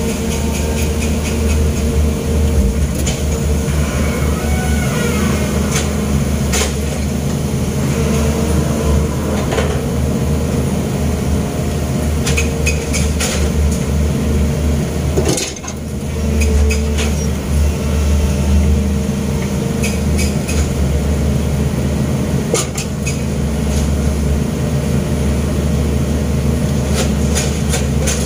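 Long-arm excavator's diesel engine running steadily, heard from inside the cab, with scattered metallic clanks and knocks from the arm and bucket as it works.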